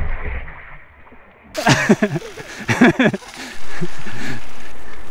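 Mountain bike ride: the tail of a muffled splash from a tyre going through a puddle past a wet, low-mounted camera, then a voice briefly, then steady wind and rolling noise on a handlebar-mounted camera, which is the loudest part.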